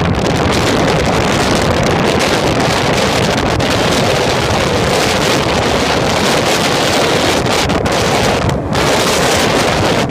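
Strong storm wind blasting the microphone, a loud constant rushing roar with gusty buffeting, over rough, heavy seas.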